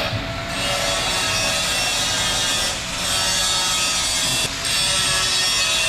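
An abrasive power tool working steadily with a rasping, rubbing sound, easing off briefly about three seconds in and again about a second and a half later.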